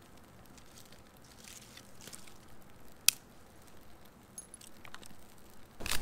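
Small newly lit campfire of birch bark and kindling sticks crackling faintly, with scattered small ticks and one sharp snap about three seconds in. Louder rustling starts just before the end.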